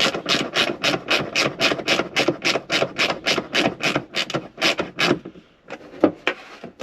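Hand ratchet with a T40 Torx bit clicking steadily, about five to six clicks a second, as the screw of a hardtop roof lock is driven in. The clicking stops about five seconds in, followed by a few lone clicks.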